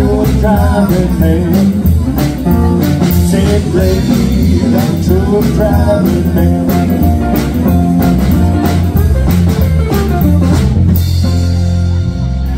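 Live country band playing a sung number with acoustic and electric guitars, bass and a drum kit. Near the end the drumming stops and the band holds a final ringing chord.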